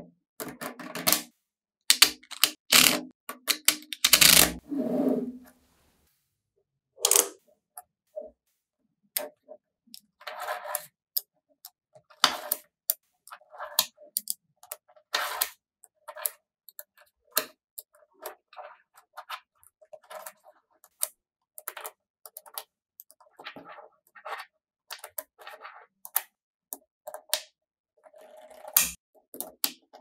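Small metal magnetic balls clicking and clacking as sheets of them are pulled apart, snapped together and pressed into place, in irregular runs of sharp ticks with short pauses. The loudest, densest run of clicks comes a few seconds in.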